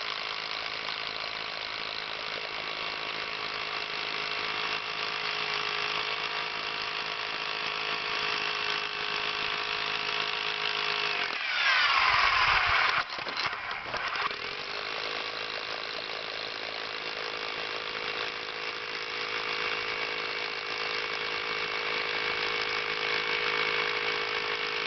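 Milwaukee Thunderbolt rotary hammer drilling a 1/2-inch hole into aggregate concrete, its motor running with a steady whine. About halfway through the whine drops away, then spins back up and carries on drilling.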